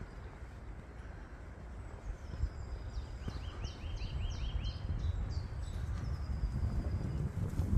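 Footsteps on a dirt woodland path, with a low rumble on the microphone that grows louder after about two seconds. About halfway through, a small songbird sings a quick run of repeated notes lasting a second or two.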